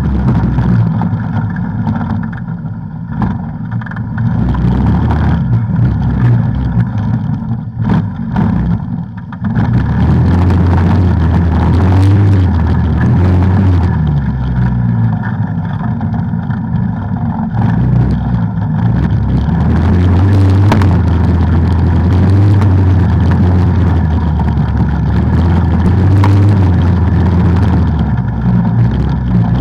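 ATV engine running under throttle on a trail, easing off briefly twice in the first third, with a few sharp knocks about eight seconds in.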